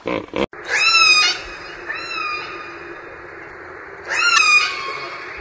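Killer whale calling in air: three high calls, each bending up then down in pitch, the middle one fainter. A short sound is cut off in the first half-second.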